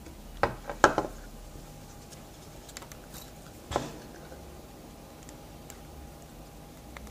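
Sharp clicks and taps of a small camera being handled, most likely its buttons being pressed: a quick cluster of three or four in the first second, one more about four seconds in, and faint ticks between, over a faint steady hum.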